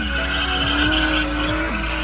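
A drift car's petrol engine held at high revs in a steady, slightly wavering note while tyres screech, heard from inside a Tesla Model 3's cabin, with background music.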